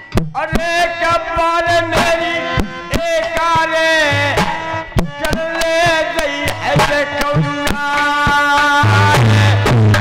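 Folk stage music: dholak drum strokes under a held, wavering melody line. About a second before the end a steady low hum joins in.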